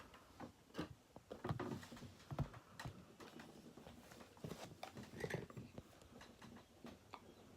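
Faint, irregular clicks and rustles of a plastic action figure and its packaging being handled.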